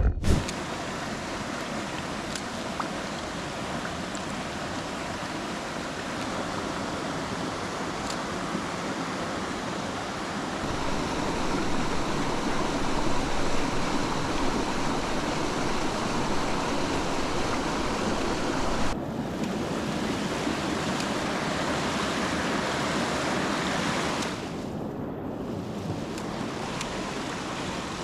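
Steady rush of a mountain stream's water over rocks, shifting in level a few times.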